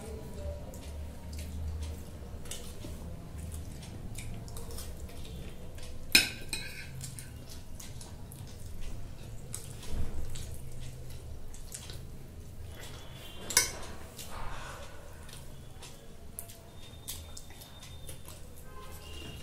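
Spoons and forks clinking and scraping on glass plates as noodles are eaten, with two sharp, loud clinks about six and thirteen and a half seconds in.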